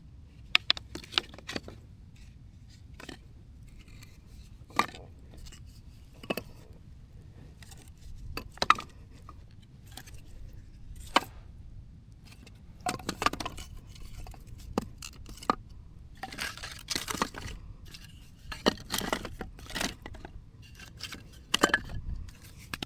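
Wood being handled and laid for a campfire: scattered sharp knocks and cracks, with stretches of rustling and scraping a little past halfway and again in the last third.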